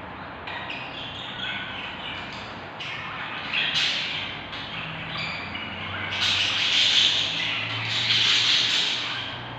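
Baby budgerigar chicks in a nest box giving rasping squawks. There are short calls at first, then two longer, louder bouts in the second half.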